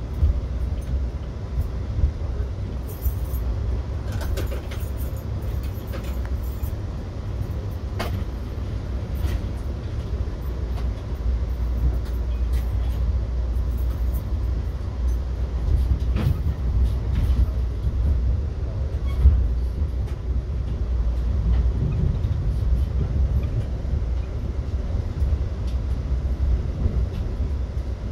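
Steady low rumble of a bi-level Amtrak passenger coach rolling along the track, heard from inside, with scattered light clicks and knocks over it.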